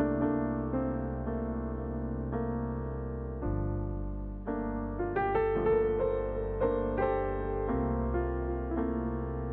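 Soft, slow piano music: sustained chords over a low held bass, with a brief rise in the melody about five seconds in.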